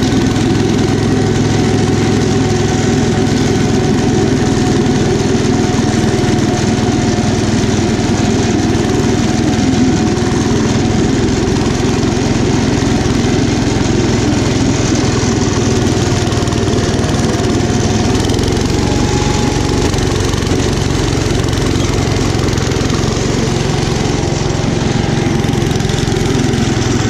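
Kohler K241 10 hp single-cylinder engine of a 1972 Gravely Commercial 10A running steadily under load, driving the front-mounted snow blower as it throws snow.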